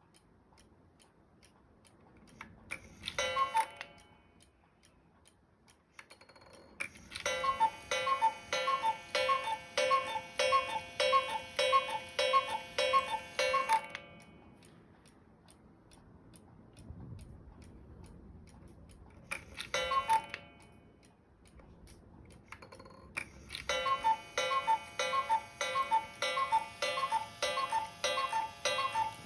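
Hones chalet cuckoo clock ticking steadily, with two long runs of its pitched cuckoo call repeating evenly about twice a second. Each run comes a few seconds after a short burst of the same pitched sound.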